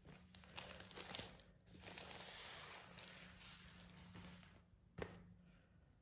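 Faint rustling and sliding of packaging as a portable monitor in its bag is worked out of the box, with one sharp knock about five seconds in.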